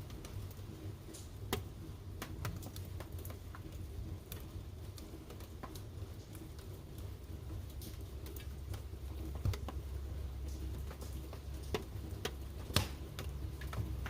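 Wood fire crackling in a fireplace: irregular sharp pops and snaps over a low steady rumble, with a few louder pops in the second half.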